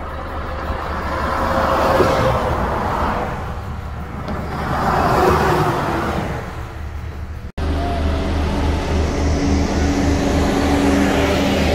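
Semi-trailer truck passing at night, its engine and tyre noise swelling and fading, loudest about two and five seconds in. After a sudden cut about 7.5 s in, another semi-trailer truck approaches with its diesel engine running in a steady drone.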